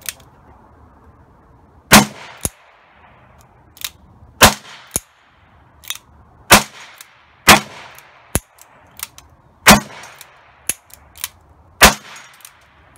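Ruger Blackhawk .357 Magnum single-action revolver firing six loud shots, one about every two seconds, each with a short ringing tail. Fainter sharp cracks and clicks come between the shots.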